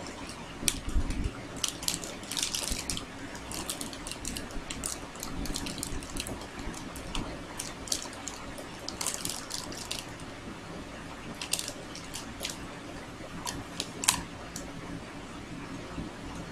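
Metallised plastic snack wrapper crinkling and crackling as it is handled and folded, in irregular clusters of sharp crackles with a louder click near the end, over a steady low background hum.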